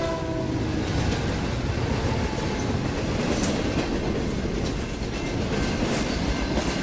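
Freight trains running past on the rails: a steady rumble of wheels on track, with a horn's last note dying away just after the start.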